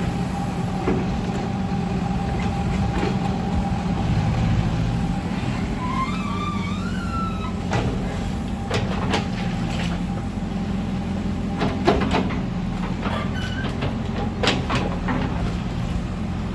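Old Caterpillar excavator's diesel engine running steadily under load, with scattered clanks and knocks as the bucket digs and dumps wet mud into a dump truck. There is a brief rising squeal about six seconds in.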